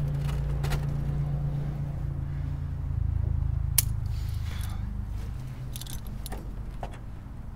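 Light metallic clinks and clicks of a hand ratchet and socket worked at a car seat's mounting bolts, with one sharp click a little under four seconds in, over a steady low hum that fades toward the end.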